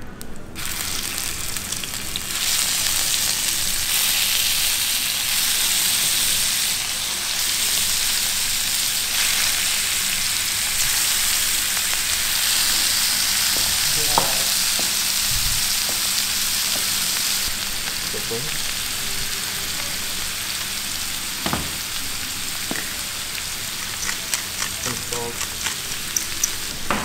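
Slices of beef steak sizzling in melted butter on a hot ridged grill pan, a steady hiss that swells a couple of seconds in as the slices go onto the pan. A couple of sharp knocks from utensils against the pan, and light crackling near the end.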